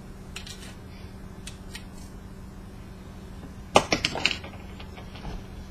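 Copper wire being pulled and unwound from a coil on a projector lamp assembly, with a few faint ticks and then a quick cluster of sharp clicks and rattles about four seconds in.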